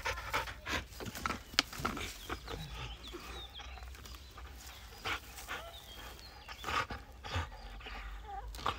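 A dog panting as it leaps and bites at a live tree branch: irregular clicks of its jaws on the wood and rustling, shaking leaves as it tugs. It is too worked up to stop, set on chewing the whole branch off.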